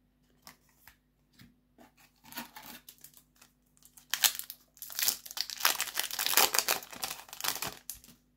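Foil Yu-Gi-Oh! booster pack wrapper crinkling and tearing as it is ripped open, a dense crackle from about four seconds in until near the end. Before that there are only a few faint clicks.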